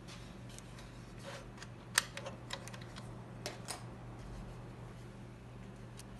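Plastic clicks and knocks from a Ricoh copier's tilting operation panel being handled and swung and its side buttons pressed, a scatter of sharp clicks with the loudest about two seconds in and one more near the end. A steady low hum runs underneath.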